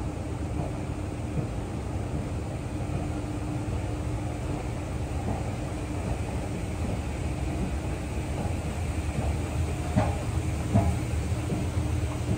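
Escalator running: a steady low mechanical rumble with a faint steady hum, and two short knocks near the end.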